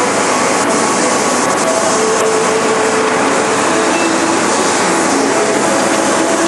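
Steady, loud machinery noise from a CNC horizontal machining centre running, with short whining tones that come and go at different pitches.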